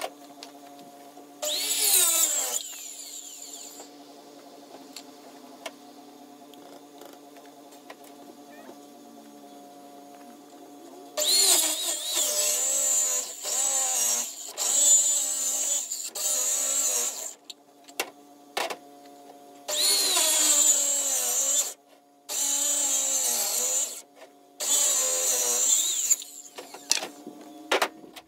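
Circular saw ripping a 2x6 lengthwise. It spins up with a rising whine for a short burst about two seconds in, then from about halfway cuts in a string of bursts of a second or two each, stopping and restarting.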